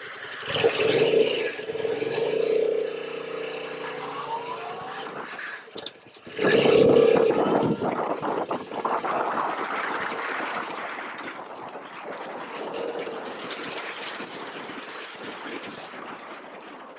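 Yamaha MT-07's 689 cc parallel-twin engine revving up as the motorcycle pulls away, dropping off briefly about six seconds in, then pulling hard again before settling. Wind rushes over the helmet-mounted camera throughout.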